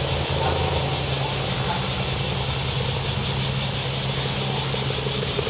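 Steady railway-station ambience: a low hum under an even hiss, as an electric commuter train approaches in the distance.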